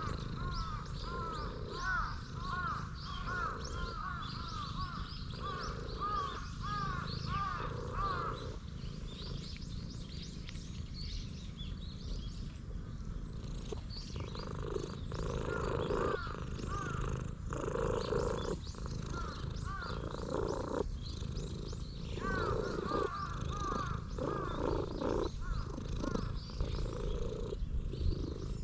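Stray cat purring loudly at close range while its head is stroked: a steady low rumble that swells and eases with each breath.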